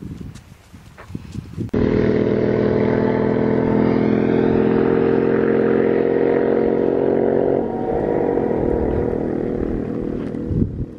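A motor vehicle passing close by on the highway: a loud, steady engine drone that drops in pitch as it goes past, about two-thirds of the way through, then fades away.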